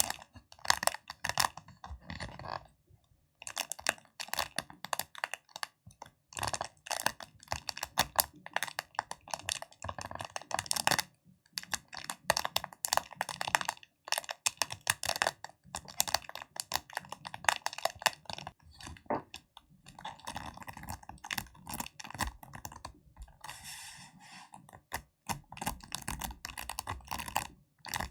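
Fingers making fast, dense crackling and tapping sounds in runs of several seconds, broken by short pauses.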